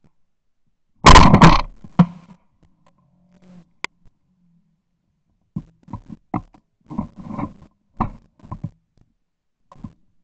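A single loud shotgun shot about a second in. Several seconds later comes a string of fainter, irregular knocks.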